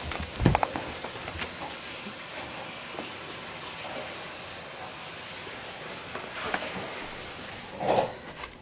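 A cat playing on carpet: a few soft knocks and scuffles, the loudest about half a second in, over a steady hiss, with a short louder scuffle near the end.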